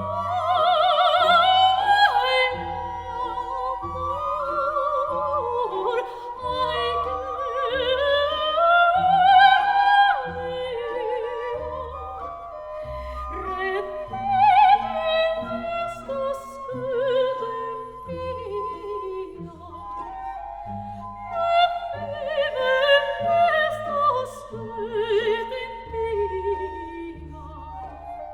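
Background music: operatic singing with vibrato over a classical accompaniment.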